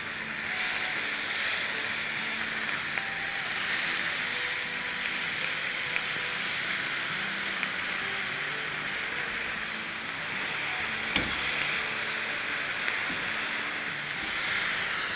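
Marinated chicken tikka pieces sizzling steadily in oil in a wide frying pan, with one sharp click about eleven seconds in. The oil's sizzle is the sign that the pieces are searing rather than stewing in released moisture.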